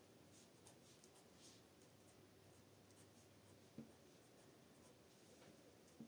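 Near silence: faint room tone with a few light ticks, and a soft knock about two-thirds through and another at the very end, as a pen comes down onto the journal page.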